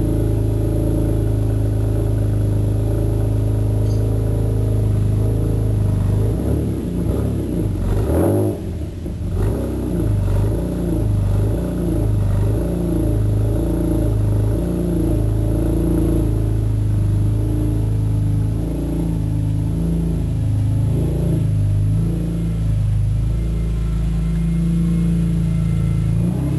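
BMW E46 M3's 3.2-litre S54 straight-six idling through a Solid Design titanium exhaust muffler, heard at the tailpipes. Through the middle stretch the low exhaust note swells and fades about once a second.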